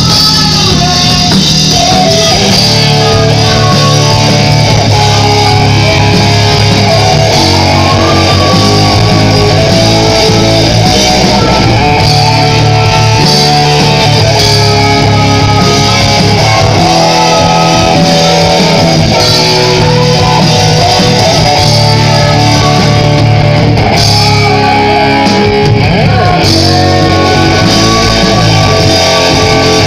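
Music with guitar, steady and loud.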